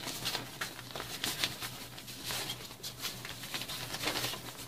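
Rustling of a white softbox diffuser cloth being unfolded and handled, with crinkling of plastic packaging, in irregular strokes.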